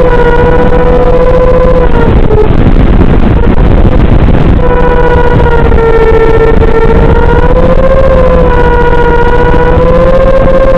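Electric motor and propeller of a small foam flying wing in flight: a loud whine that wavers slowly in pitch over heavy wind rush. About two seconds in the whine falls away for a couple of seconds, leaving only wind, then comes back.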